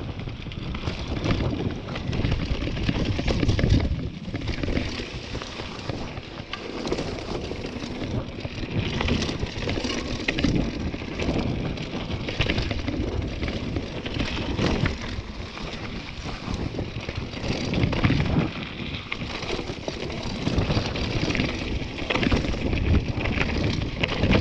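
Mountain bike riding down a loose, dry dirt trail: tyres crunching over dirt and rocks, with frequent knocks and rattles from the bike over the bumps. Wind buffets the microphone with a steady low rumble.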